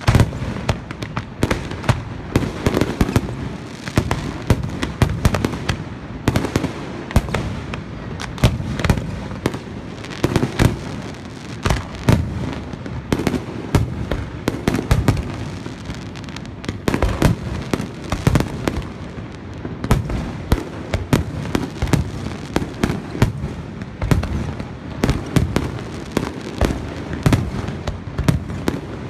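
Aerial firework shells of a professional display bursting in a dense, continuous barrage of overlapping bangs, many each second.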